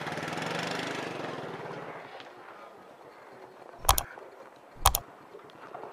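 A passing motor vehicle's engine fading away, then two sharp knocks about a second apart.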